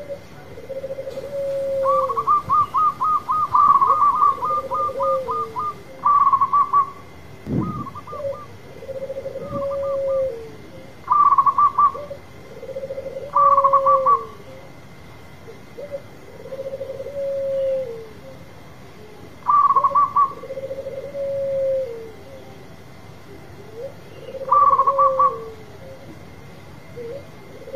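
Zebra dove (perkutut) cooing: a low coo with a falling end repeats about every two and a half seconds, over bursts of quick higher-pitched notes, the longest a rapid run of about a dozen notes a couple of seconds in. A low thump about eight seconds in.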